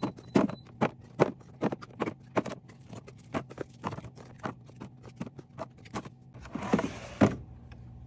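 Small plastic drink bottles set one after another into a clear plastic fridge bin, a series of light clacks about two a second. Near the end comes a brief scrape ending in a loud knock as the bin slides back into the fridge.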